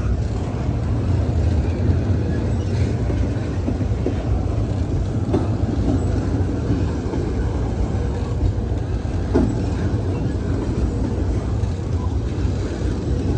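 Double-stack intermodal freight train's well cars rolling past, a steady low rumble of steel wheels on the rails.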